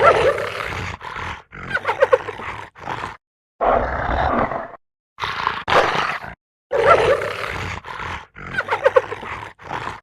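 Designed hyena-like monster sound effect: a run of harsh roaring calls, some broken into quick chattering pulses, cut apart by short dead-silent gaps. The run of calls repeats about two-thirds of the way through.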